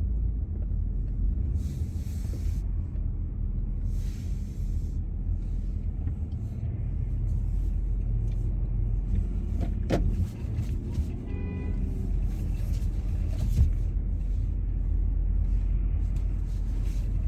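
Steady low rumble of a car heard from inside the cabin, engine and road noise, with a single sharp click about ten seconds in.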